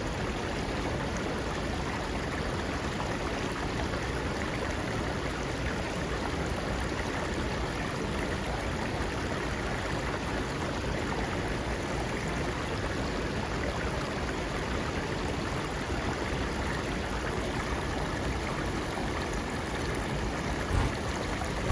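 A steady, unbroken rushing noise, even and unchanging throughout, like flowing water.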